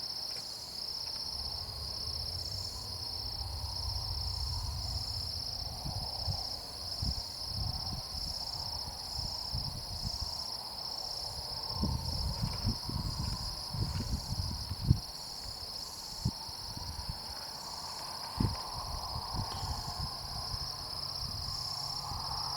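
A steady, high, finely pulsing chorus of night insects such as crickets. Underneath it come intermittent low rumbles and a few soft knocks, bunched about halfway through.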